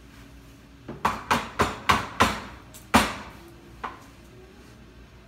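A quick run of sharp knocks of kitchenware, about three a second, each ringing briefly, ending in a louder knock, then one fainter knock about a second later.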